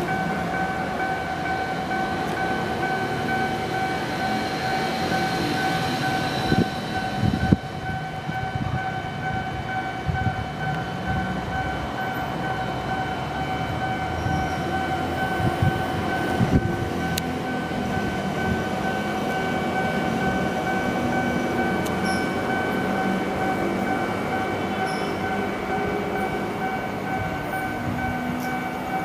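Railway level-crossing warning bell sounding continuously, a steady high tone with overtones, over a low rumble, with a couple of brief knocks about seven and sixteen seconds in.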